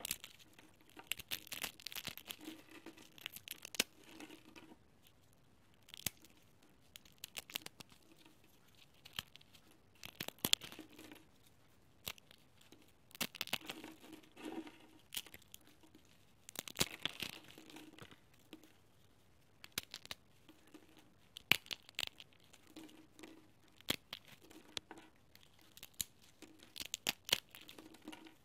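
Dry, uncooked instant ramen noodle blocks being crushed and broken apart by hand: brittle crackling and snapping that comes in irregular bursts of many sharp cracks, a few seconds apart.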